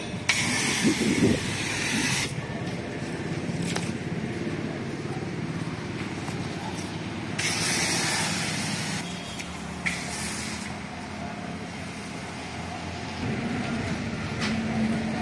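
Pressure washer spraying in hissing bursts: one about two seconds long near the start, another around seven and a half seconds, and a brief one near ten seconds, over a steady low hum.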